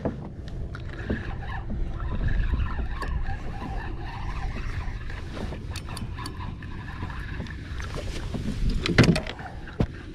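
A hooked spotted seatrout being fought from a kayak: steady wind rumble and water sloshing, with scattered clicks and knocks of the spinning reel and rod. About nine seconds in there is a sudden loud burst of splashing and knocking.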